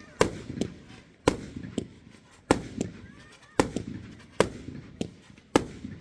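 Fireworks display: a run of sharp firework bangs, about one to two a second, each followed by a short echoing tail.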